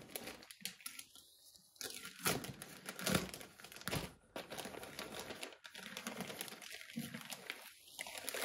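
Plastic courier mailer bag crinkling and crackling as it is handled by hand, its taped end torn and pulled open, loudest in the middle.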